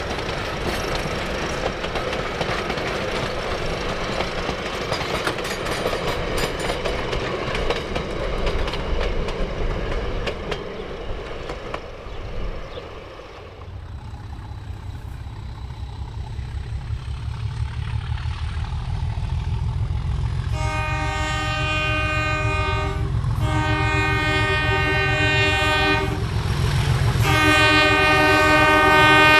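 Railway carriages rolling over the track with a steady clatter and rattle of wheels, which cuts off about 13 seconds in. Then English Electric diesel locomotive Di 1102 approaches with a low engine rumble and sounds its multi-tone horn three times, each blast two to three seconds long, the last the loudest.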